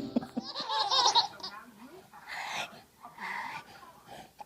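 Laughter: a high, wavering squeal about half a second in, then two short breathy laughs.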